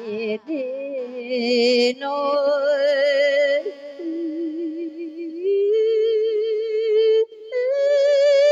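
A Buddhist monk's single voice chanting a sung Thai verse sermon (thet klon) in long held notes with a strong waver, sliding between pitches in phrases broken by short breaths.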